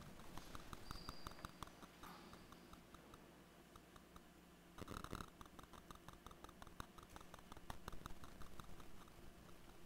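Near silence in a large church: faint scattered clicks and taps, several a second, with a slightly louder knock or shuffle about five seconds in.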